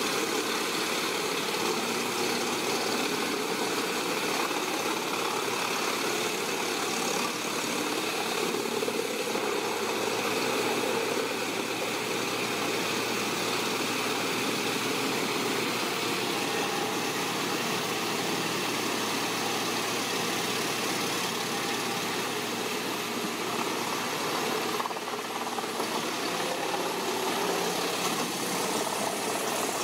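Large industrial wood chipper running steadily under load: a continuous engine drone mixed with the noise of spiked rollers shredding logs into chips.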